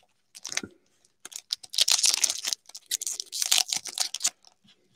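Plastic trading-card pack wrappers crinkling and tearing in irregular bursts as Prizm football mega box packs are handled and opened.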